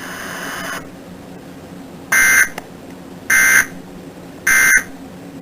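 Emergency Alert System End of Message data burst: three identical short, harsh buzzing chirps of digital data, each about a third of a second long and about a second apart. They are the EOM code that closes an EAS alert broadcast.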